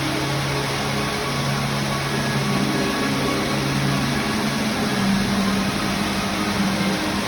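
Pyrotechnic fountains hissing steadily, with a few held low tones underneath that shift in pitch now and then.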